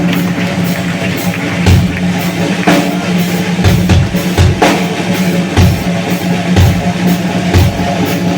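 Heavy metal band playing live at full volume: drum kit with kick drum and cymbal hits in a steady beat under a held, distorted guitar and bass chord.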